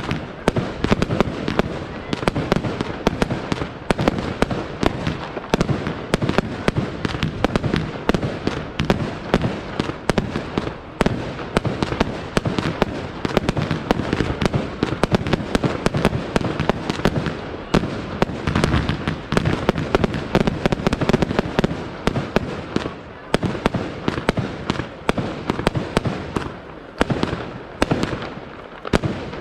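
Aerial fireworks display: a dense, continuous barrage of shell bursts and cracking bangs following one another in rapid succession, easing slightly in a few short gaps in the second half.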